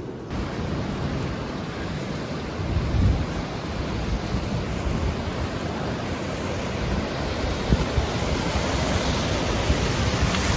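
Surf washing onto a sandy beach as a steady rush, with wind buffeting the microphone in uneven low rumbles.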